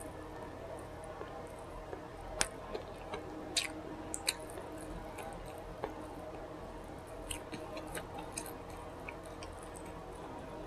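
A person chewing food with wet mouth clicks and lip smacks, scattered and irregular, the sharpest few between about two and four and a half seconds in, over a faint steady hum.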